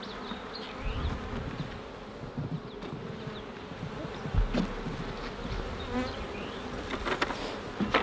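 Honey bees buzzing steadily over an open hive, with a few short knocks of wooden hive frames being handled, the sharpest about halfway through and two more near the end.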